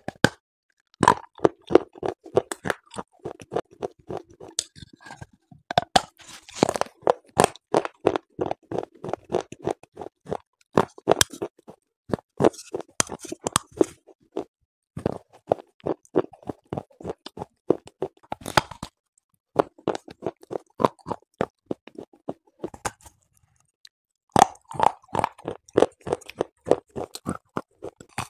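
Clay pot being bitten and chewed, close-miked: dense runs of sharp crackly crunches, broken by a few short pauses, the longest about two-thirds of the way in.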